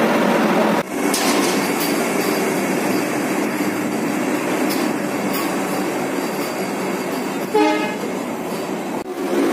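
Vande Bharat Express electric trainset running along the platform, a steady running noise. A short train horn toot sounds about seven and a half seconds in.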